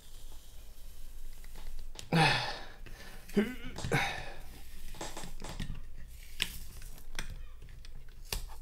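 Hands prying and pulling at the stuck-on rubber front cover of a Blackmagic Cinema Camera 2.5K: scattered scraping and rubbing noises against the metal body, the loudest about two and four seconds in.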